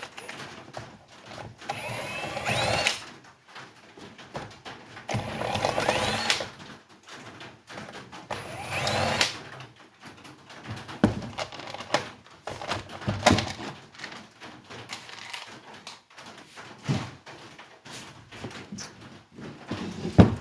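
Three short bursts of a small motor whining up in pitch in the first half, then a scatter of clicks and knocks, as the top cover of a Stihl MS 311 chainsaw is taken off.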